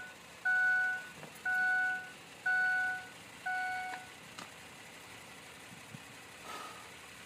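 Truck dashboard warning chime with the key on before cranking: an electronic beep about once a second, four times, which then stops, followed by a couple of faint clicks.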